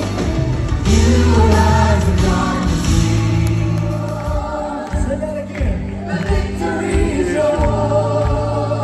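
Live gospel worship music: a choir singing over a band with a steady bass line.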